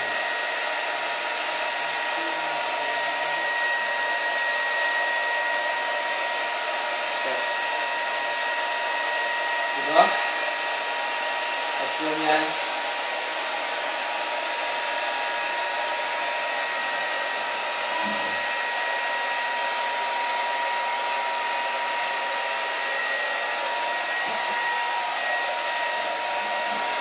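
Hand-held hair dryer running steadily at one speed: a rushing airflow with a steady motor whine. A few brief sounds break in over it, the loudest a short rising one about ten seconds in.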